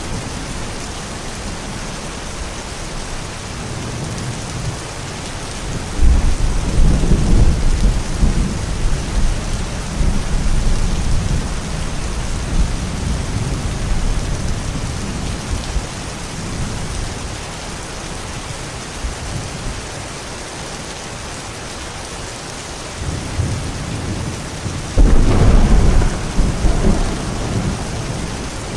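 Thunderstorm: steady rain falling, with two loud deep thunder rumbles, one about a fifth of the way in that rolls on for several seconds and another near the end.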